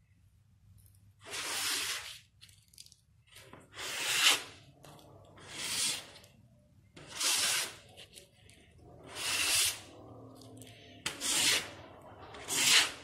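Aerosol spray-paint can sprayed in seven short bursts, a hiss roughly every one and a half to two seconds.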